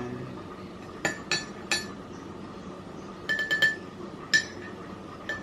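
A spoon stirring coffee in a cup, clinking against its side: a string of short, ringing clinks at uneven intervals, with a quick run of four about three seconds in.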